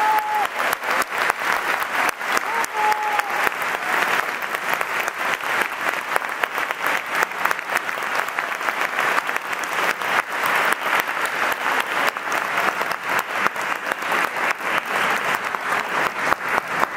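Audience applause: a large crowd clapping steadily and densely.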